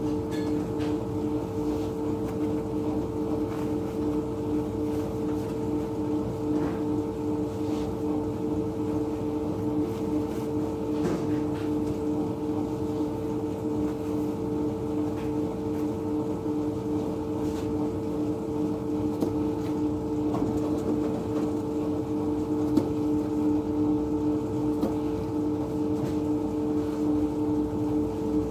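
Steady hum of running bakery machinery, a constant drone with a few fixed tones, never changing. A few faint knocks sound over it now and then.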